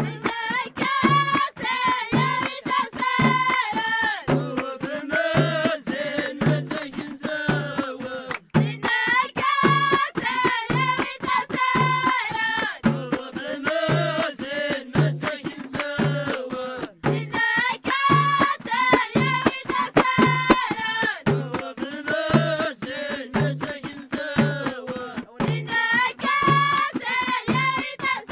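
Traditional Moroccan High Atlas song: children's voices singing a high, repeating melodic phrase over a steady drum beat.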